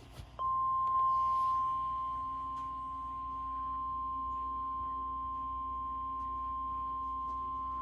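NOAA Weather Radio 1050 Hz warning alarm tone: one steady, unbroken beep starting about half a second in. It signals that a new warning is about to be read.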